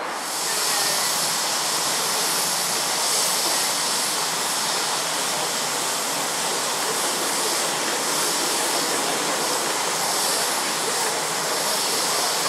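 A steady, unbroken hiss of steam blowing from a live-steam miniature locomotive.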